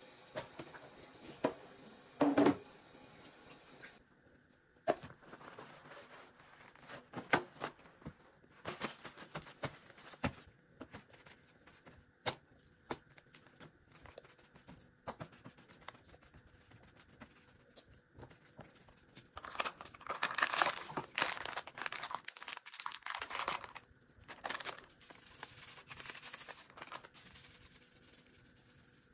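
Plastic food packaging being crinkled and torn open, with a longer, louder stretch of rustling about two-thirds of the way in, among scattered knocks and clicks of hands, a plate and items handled on a stone countertop.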